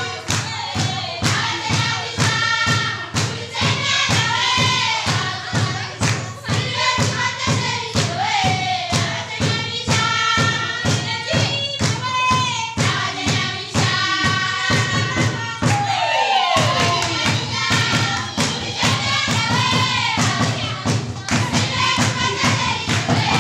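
A group of children singing together in chorus over a steady thumping beat, with a short break in the beat about sixteen seconds in.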